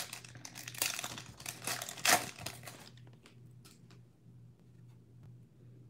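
Foil wrapper of a Panini Prizm basketball card pack being torn open and crinkled, with the loudest crackle about two seconds in. After about three seconds only faint light ticks remain as the cards are slid out and handled.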